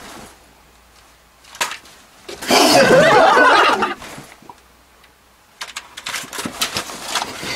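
A person's burst of laughter lasting about a second and a half, starting about two and a half seconds in. A few short, sharp clicks come near the end.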